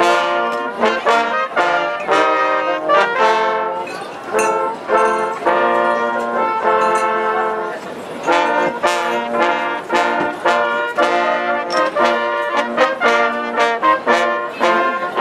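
Brass band music: trumpets and trombones playing a tune together, with short detached notes in a steady rhythm.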